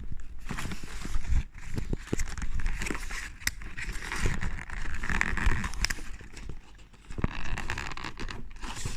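Close-up handling of a new bike computer and its packaging: rustling with many scattered clicks and knocks as the unit is worked at by hand.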